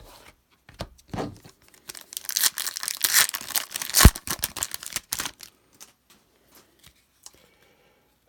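Trading card pack wrapper being torn open and crinkled: a dense, crackly tearing from about two seconds in to about five seconds, with one sharp snap near the middle. A few faint handling ticks follow.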